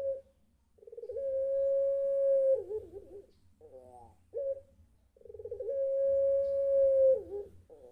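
Domestic ringneck dove of the long-voiced 'pelung' type cooing twice. Each coo opens with a quick stutter, holds one long steady note, and ends in a wavering drop, with shorter warbled notes between the two: the long drawn call that the owner hears as the bird calling for its mate.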